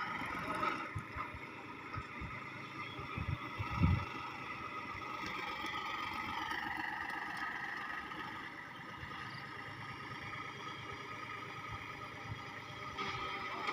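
A small farm tractor's engine running steadily at working speed, its pitch sagging a little about halfway through, with a few low thumps about four seconds in.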